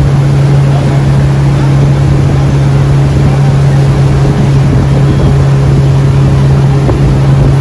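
Motorboat engine running at a steady speed, a constant drone that holds the same pitch throughout.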